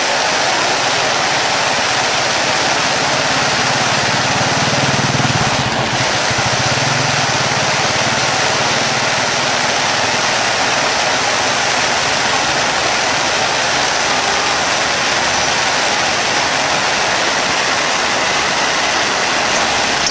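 Ground fountain firework burning, a steady loud hiss of spraying sparks.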